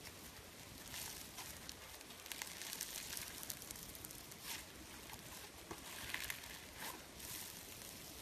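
Fluffy, snow-textured slime being stretched and pulled apart by hand, giving faint fine crackling and tearing sounds that come in several bursts.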